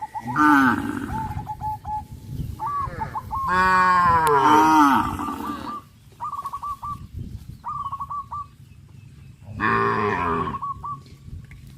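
Cattle mooing: several moos, the longest and loudest starting about three and a half seconds in and lasting well over a second, with another near the ten-second mark. Short repeated high chirps fill the gaps between them.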